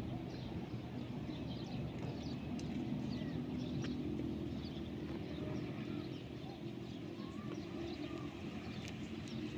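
Many short, high bird chirps over a steady low engine hum.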